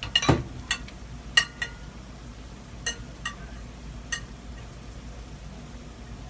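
A metal spoon clinking against a plate and pan while vegetables are scooped and added: about eight short, ringing clinks in the first four seconds, the loudest near the start.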